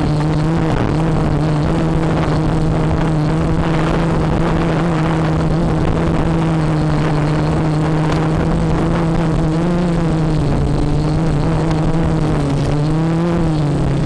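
FPV quadcopter's electric motors and propellers buzzing steadily, the pitch lifting briefly twice as the throttle changes, over a hiss of noise.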